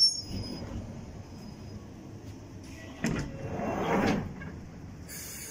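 Northern Line 1995 Stock tube train's sliding passenger doors opening at a platform stop: a sudden start about three seconds in, then a swelling sound that fades after about a second.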